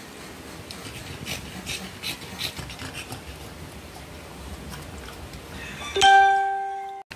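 A pug in labour pawing at a blanket, with faint scratching and panting. About six seconds in there is a single loud bell-like ding that fades over about a second and then cuts off suddenly.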